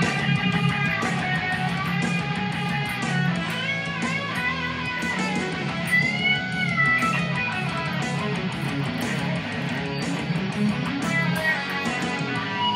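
Ibanez electric guitar played fast, running quick lead lines with string bends about six seconds in, over a steady bass and drum backing.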